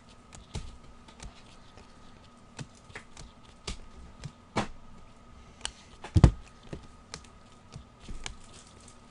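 2015-16 O-Pee-Chee hockey trading cards being flipped through and set down by hand: a scattered run of light clicks and taps, with one heavier thump about six seconds in, over a faint steady hum.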